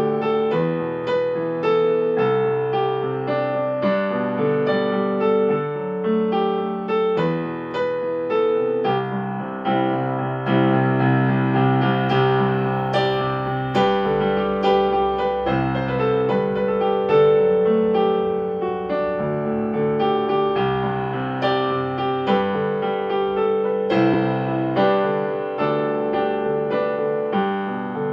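Solo piano playing: a continuous flowing passage of notes over held bass notes.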